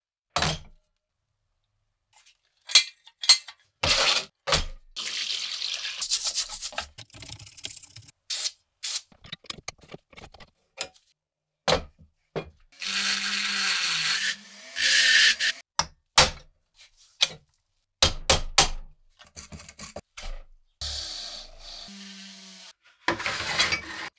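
Rusty antique seed planter being taken apart by hand: a string of sharp metal clicks and clanks as parts are worked loose and set down, broken by a few stretches of steady hissing or rubbing noise.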